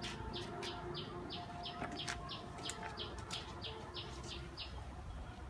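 A bird calling a steady series of short, evenly spaced chirps, about three a second, stopping near the end.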